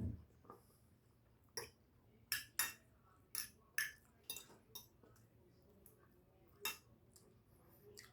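Metal cutlery clinking and scraping against a plate as food is scooped up: about eight sharp clinks, with a dull thump at the start.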